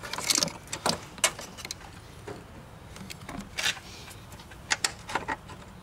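Scattered light clicks and rustles of a wiring harness and its metal ring terminal being handled and fitted onto a ground stud.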